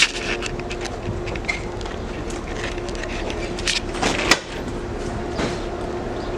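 A standing train's steady hum under a low rumble, with a few scattered knocks and clicks. The loudest knock comes about four seconds in.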